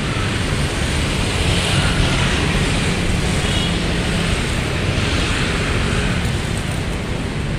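Large diesel coach engine idling: a steady low rumble with an even hiss over it.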